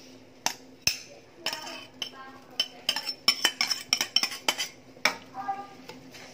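A ceramic plate and a metal ladle clinking and tapping against a stainless-steel stockpot as goji berries are tipped in and stirred. Many quick, ringing clinks, some close together, start about half a second in.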